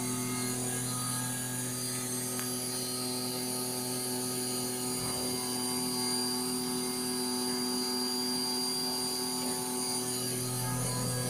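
CNC milling machine spindle carving a stone block, a steady whine and hum with a high hiss.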